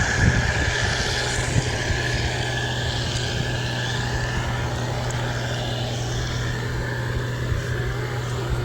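Steady running noise of a vehicle on the move: an even engine hum under a constant rush of noise.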